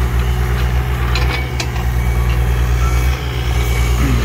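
Diesel engine of compact earthmoving equipment running steadily under work, with a few sharp knocks and clanks about a second in.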